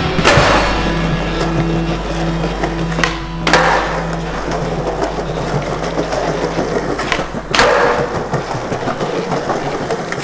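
Skateboard wheels rolling over a smooth hard floor, with three sharp clacks of the board hitting the ground: near the start, about three and a half seconds in and about seven and a half seconds in. Background music with long held low notes plays under it.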